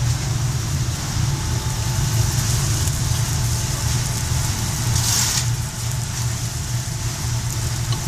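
Probat GG150 coffee roaster running mid-roast: a steady low hum of its machinery, with a brief hiss about five seconds in.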